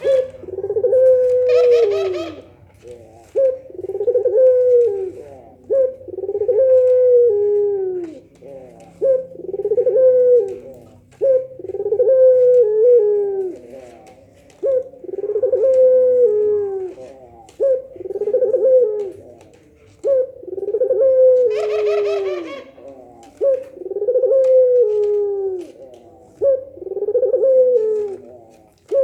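Puter pelung doves, a deep-voiced breed of Barbary dove, cooing over and over in the nangguk style, several birds answering one another. Each coo is a long falling call, repeated about every two seconds. A few louder, harsher calls stand out near the start and about 22 seconds in.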